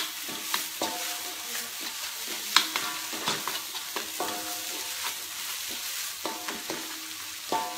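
Wooden spatula stirring and scraping a pounded dried-chilli paste as it fries in a metal wok, over a steady sizzle. About nine irregular knocks of the spatula against the pan set the wok ringing briefly.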